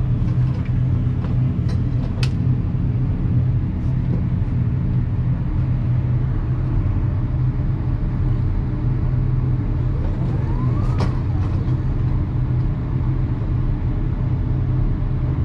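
Steady low droning hum of an indoor shooting range, with a couple of faint sharp clicks, one about two seconds in and one near eleven seconds. No loud gunshots stand out.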